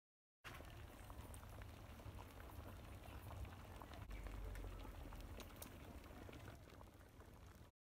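Thick pumpkin soup simmering in a metal pot over a wood fire: a steady stream of small bubbling pops over a low rumble. It starts about half a second in and cuts off suddenly just before the end.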